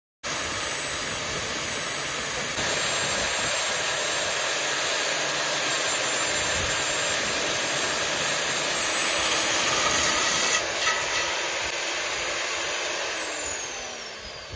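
Blue Rock Z1 core drill with an 8-inch coring bit running wet and cutting through concrete: a steady grinding with a high motor whine on top. Near the end the whine falls in pitch and the drill winds down.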